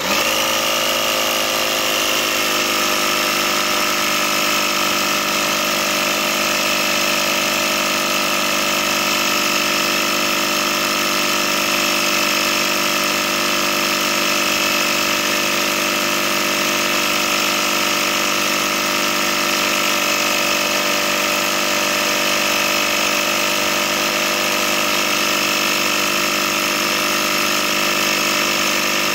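A small electric air compressor switches on and runs at a steady pitch, pressurizing a bottle of 80W-90 gear oil so the oil is pushed up a hose into a manual transmission's fill hole.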